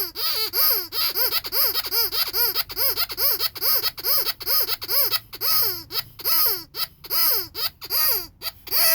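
Rubber cow squeaky toy squeezed again and again in quick succession, about three squeaks a second. Each squeak rises and falls in pitch, with an airy hiss from the squeaker.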